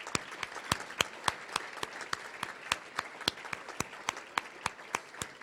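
Audience applauding, with many sharp individual claps standing out, thinning out near the end.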